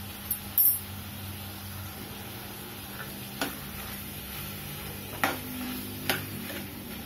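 A steel spoon stirring boiled vegetables and masala in a steel kadai, with a few sharp clinks and scrapes of metal on metal, the loudest about half a second in, over a steady low hum.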